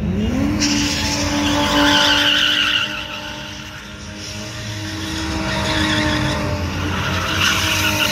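Drift car's engine revving hard, its pitch climbing in the first half-second and then held at high revs, with tires squealing as the car slides. The sound dips around three to four seconds in, then builds again as another slide squeals near the end.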